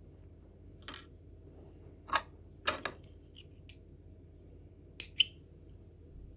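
Small blue-handled scissors handled and snipping thread: a few scattered sharp clicks, with the sharpest pair about five seconds in.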